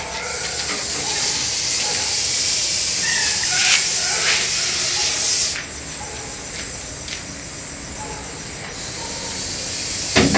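Snake hissing: a long, strong hiss that drops off sharply about five and a half seconds in, then carries on more softly. A sharp knock comes near the end.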